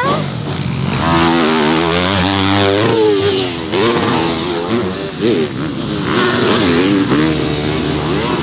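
Dirt bike engine revving, its pitch climbing and dropping again and again as the throttle is opened and closed.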